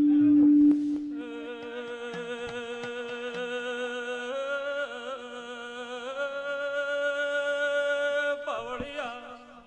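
Keyboard instrument holding a long, steady chord that steps up in pitch twice, as accompaniment in live devotional music. A man's voice comes in briefly near the end.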